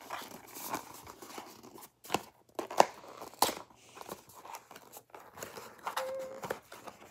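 A small pink cardboard gift box being torn and pried open by hand: irregular rustling, crinkling and sharp clicks of cardboard and packaging.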